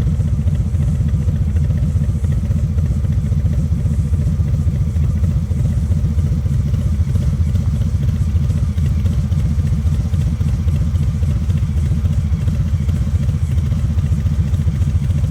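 Harley-Davidson Street Bob 114's Milwaukee-Eight V-twin idling steadily through a Rinehart exhaust, a deep, even rumble that cuts off abruptly at the end.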